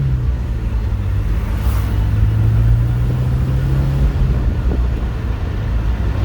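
Porsche transaxle car's engine pulling steadily on the road with a low rumble, its pitch holding level and then dropping about four seconds in.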